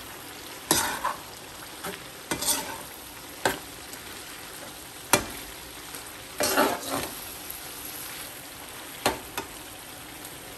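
Metal slotted spoon scraping and clinking against a wok as minced-meat keema is stirred with spices, with about six separate strokes, the sharpest about five seconds in. A steady sizzle of the meat frying in oil runs underneath.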